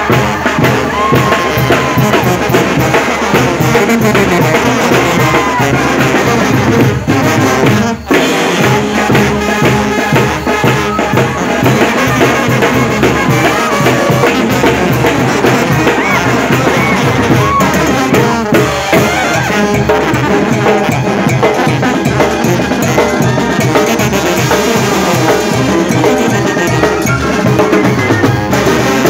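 Live Oaxacan brass band playing loudly, with trumpets and trombones over a steady drum beat, and crowd voices mixed in.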